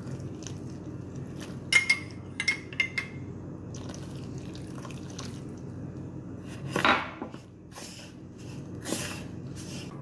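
Hot milk and lard poured from a glass mug onto sweet manioc starch in a plastic tub, scalding the dough. This is followed by a few ringing clinks of a metal spoon against the glass and tub, then the spoon scraping and stirring the mixture, with a louder clatter near the end.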